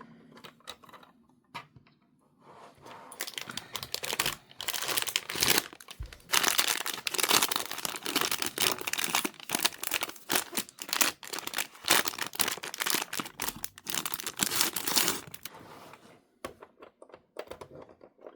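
Doll packaging being handled and pulled open: plastic and cardboard crinkling and tearing in a dense run of crackles, starting about three seconds in and stopping a couple of seconds before the end, with a few scattered clicks around it.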